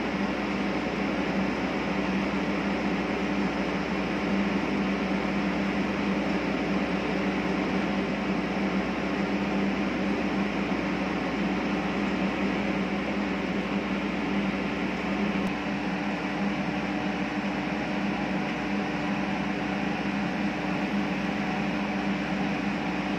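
Ulise silent diesel generator in its soundproof canopy, running steadily at constant speed. A low, even hum carries two steady tones over a hiss, with no change in speed or load.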